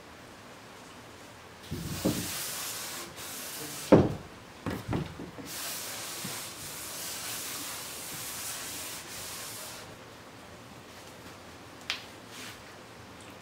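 A cloth wiping a wooden sliding door in long rubbing strokes, with a few knocks against the door; the sharpest knock comes about four seconds in.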